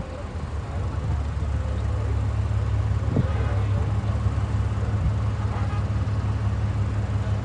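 A motor vehicle's engine running steadily at idle, a low even hum.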